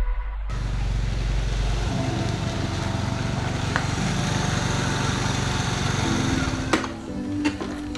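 Small automatic motor scooter's engine running as it rolls up and comes to a stop. The engine note ends about seven seconds in, followed by a couple of sharp clicks.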